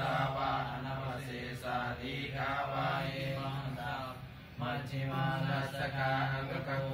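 Buddhist monks chanting Pali paritta verses in low male voices on a steady, near-monotone pitch, with a short pause for breath about four seconds in.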